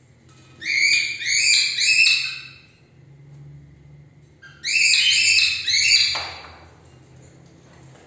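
Cockatiels giving loud, shrill calls in two bouts of three or four quick notes each, the second bout starting about two seconds after the first ends.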